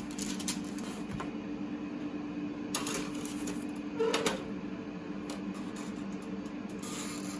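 Air fryer running with a steady fan hum, with a few light clicks and clatters about three seconds in and near the end.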